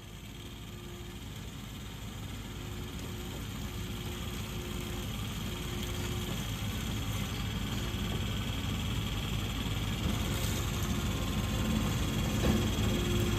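Cosen C-320GNC horizontal bandsaw running after start-up, its blade feeding down onto an aluminium bar. The sound grows steadily louder.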